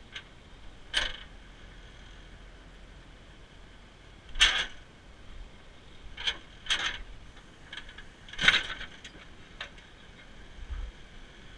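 Tow truck wheel-lift gear being handled: about six sharp metal clanks and knocks, each ringing briefly, as the steel wheel-lift pins and arms are set down and worked against the steel deck. The loudest clanks come about four and a half and eight and a half seconds in.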